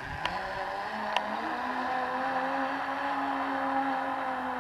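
Zipline trolley's pulley wheels rolling along the steel cable: a steady whirring hum that rises in pitch over the first second, holds, and begins to fall near the end, with two light clicks in the first second and a half.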